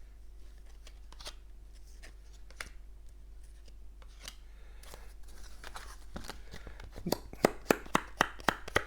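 Stiff laminated game cards being handled: scattered soft clicks, then near the end a quick run of sharp clicks, about three a second.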